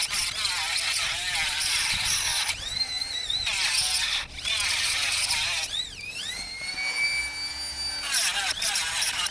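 Dremel rotary tool cutting through the metal can of a 21700 lithium-ion cell: a high-pitched whine over grinding noise, wavering in pitch as the wheel bites. It lets up briefly a couple of times.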